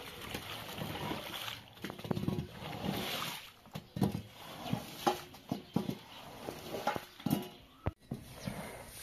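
A long-handled squeegee pushed in repeated strokes across a soaked pile carpet, swishing and splashing the wash water off it, with short knocks as the blade is set down and dragged.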